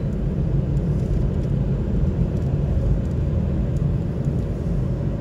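Steady road and engine rumble inside a moving car's cabin, deep and even with no breaks.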